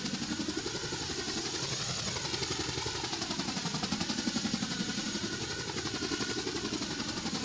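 CH-47 Chinook tandem-rotor helicopter running on the ground, its rotor blades beating in a rapid, even pulse.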